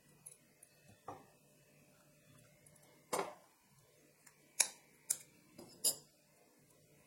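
A steel spoon and kitchen containers clinking and knocking against a bowl in a few separate strokes: a faint tap about a second in, a duller knock about three seconds in, then three sharp clicks close together in the second half.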